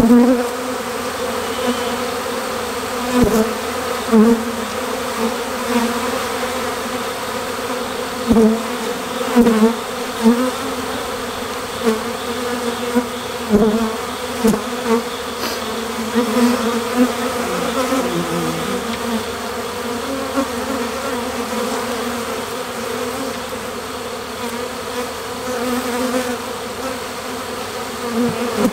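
A swarm of honeybees buzzing in a steady hum, with single bees repeatedly whizzing close past, their buzz swelling and falling away every second or two.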